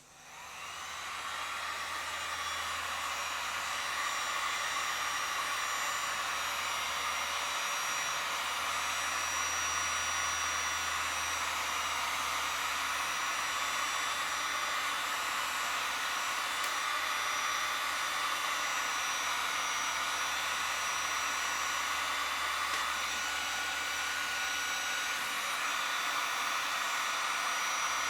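Heat gun running steadily, a blowing rush with a faint whine, building up over the first few seconds after it is switched on. It is heating the plastic aftermarket wheel flare to soften it so it can be pulled tight to the body.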